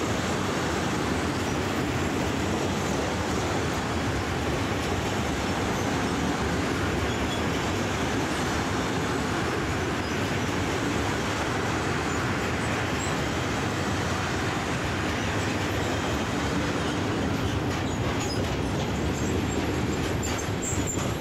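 Freight train of covered bogie wagons rolling past on the rails: a steady rumble of wheels and running gear on the track.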